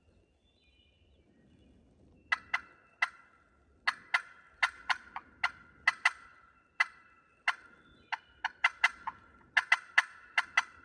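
Turkey clucking and cutting: about twenty sharp, loud notes in quick, irregular runs, starting a couple of seconds in and growing faster and denser toward the end.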